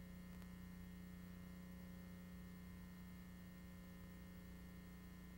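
Near silence: a faint steady electrical hum with a little hiss, and one faint tick about half a second in.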